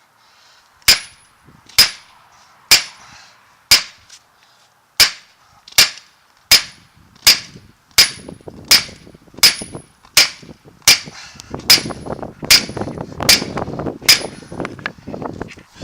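Hammer blows on steel, about seventeen strikes at a steady pace of roughly one every 0.8 seconds, each with a short metallic ring: driving the bearing caps out of a truck drive shaft's U-joint yoke. A low rumbling noise fills the gaps between strikes in the second half.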